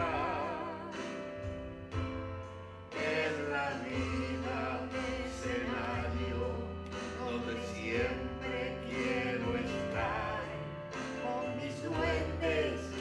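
A man and a woman singing a Spanish-language song together over sustained instrumental chords, the voice wavering with vibrato at the start.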